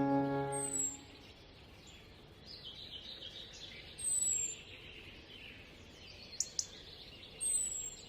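Background music fading out within the first second, then faint outdoor ambience in which a bird gives short high chirps, each a quick falling note, about half a second in, about four seconds in and near the end. Two brief clicks come just before the last chirp.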